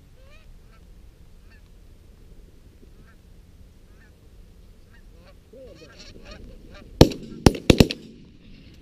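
Canada geese honking as a flock comes in over the decoys, the calls growing busier, then a rapid volley of shotgun shots about seven seconds in, four or five cracks inside a second, and one more shot near the end.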